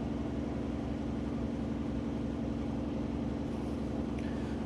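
A steady low mechanical hum at an even level, like a motor or fan running.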